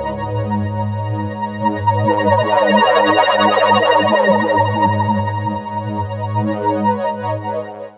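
Synthesizer pad playing sustained chords: the Omnisphere patch "J3's OB6 Polymod BP Flutter", a fluttering poly-mod pad modelled on the Oberheim OB-6. The chords ripple with a rapid flutter, swell in the middle and cut off abruptly at the very end.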